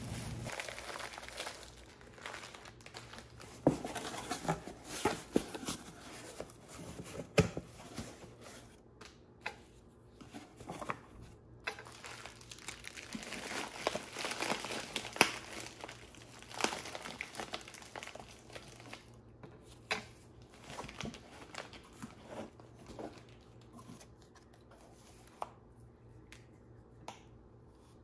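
Plastic wrapping crinkling and rustling as a wrapped mug is handled and packed into a cardboard box, with many sharp clicks and knocks; it dies down over the last few seconds.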